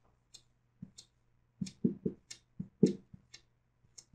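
Dry-erase marker writing on a whiteboard: a quick, uneven run of short squeaks and taps as letters are stroked out, about a dozen strokes in a few seconds.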